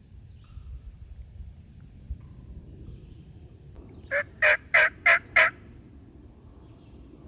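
A jake (young male wild turkey) gobbling close by: one loud call of five quick, evenly spaced notes about four seconds in, which sounds just like a mature gobbler.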